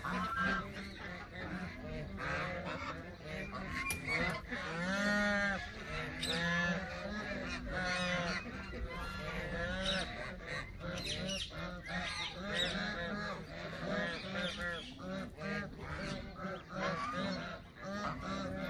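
Canada geese honking over and over, many short calls that rise and fall in pitch, over a steady low hum.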